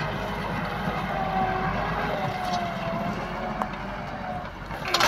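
Landini tractor's diesel engine running steadily under load while pulling a mounted plough, with a faint wavering whine over the rumble. A sharp clatter near the end is the loudest moment.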